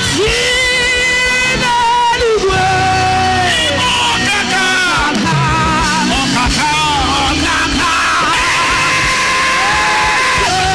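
Music with a loud singing voice holding long, wavering notes over a band accompaniment.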